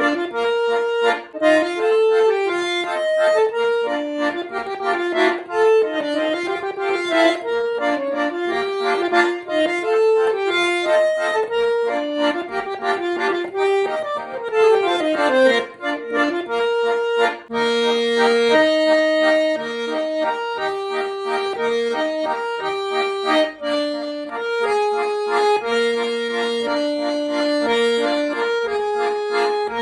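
Schwyzerörgeli (Swiss button accordion) playing a lively traditional Swiss folk tune in quick runs of notes. A fast descending run comes about halfway through, followed by longer held notes.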